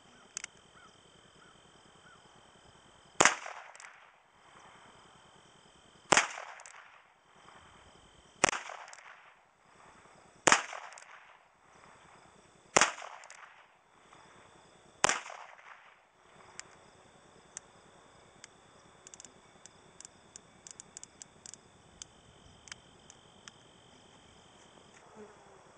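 Ruger Single Six .22 single-action revolver fired six times, about two seconds apart, each shot a sharp crack with a short fading echo. Faint small clicks follow in the last several seconds.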